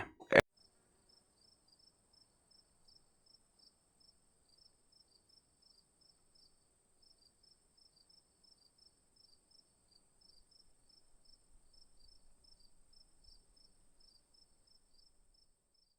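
Near silence, with a faint steady high tone and a faint high chirping that repeats evenly.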